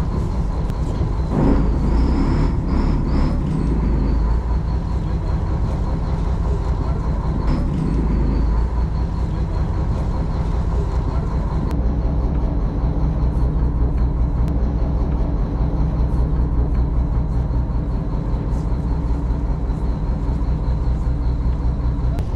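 Fishing boat's engine running steadily, a low drone, with brief louder noises about two seconds and eight seconds in.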